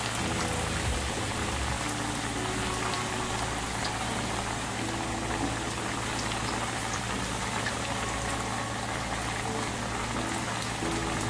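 Sweet potato slices deep-frying in hot oil: a steady crackling sizzle.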